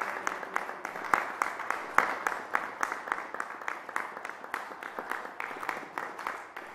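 Applause from a small seated audience, the separate hand claps heard distinctly, several a second.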